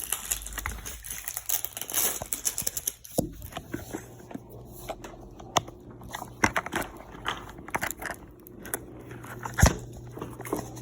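Crinkling plastic wrap and small plastic clicks and crackles as a Mini Brands capsule ball is unwrapped and opened by hand, with one sharper click near the end.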